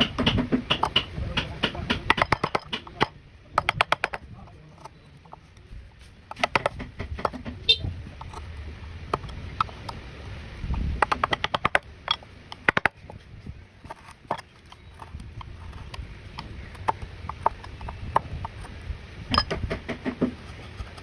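Runs of quick, sharp taps and clicks, several a second, in bursts with short pauses between, from hand woodworking.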